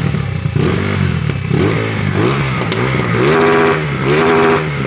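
Motorcycle engine running and revved in repeated blips, pitch swinging up and down, with three longer revs in the second half. This is a backfire test on a bike that backfires and starts hard.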